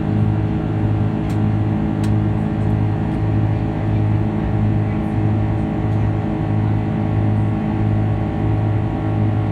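Airbus A330-200 cabin drone from its twin jet engines, with a steady low throb that swells and fades about one and a half times a second, the beat of the two engines running at slightly different speeds.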